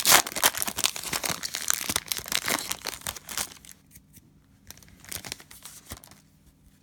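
Plastic cello wrapper of a trading-card pack being torn open and crinkled. The crackling is dense for the first three seconds or so, thins to a few crinkles, and stops near the end.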